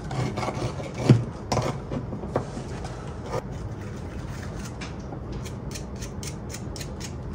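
Small metal faucet parts knocked and clinked on a workbench, the loudest knock about a second in. Near the end comes a quick run of short scraping strokes from cleaning the threads of a vintage faucet valve body.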